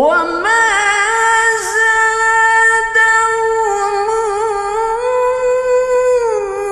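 A single voice reciting the Quran in the melodic, drawn-out tilawah style, starting abruptly from silence. It holds long sustained notes with slow ornamental slides in pitch, dipping and gliding downward near the end.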